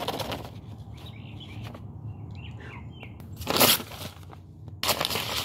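Paper sign rustling and crinkling as it is handled close to the microphone, in two louder bursts, one about three and a half seconds in and one near the end. Faint bird chirps can be heard between them.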